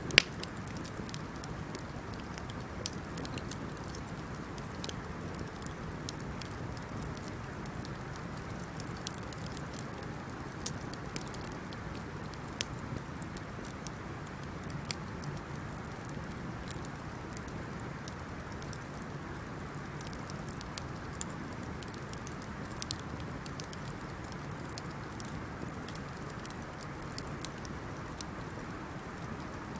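Wood campfire burning with a steady low hiss and scattered sharp crackles and pops, the loudest pop right at the start.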